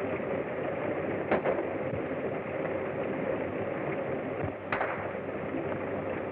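Gunshots in a shootout: two sharp cracks close together about a second in and another near the end, over the steady hiss of an old film soundtrack.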